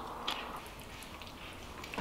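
Faint, soft sounds of sauce-coated chewy noodles being lifted from a bowl with chopsticks, with a light wet click about a quarter second in.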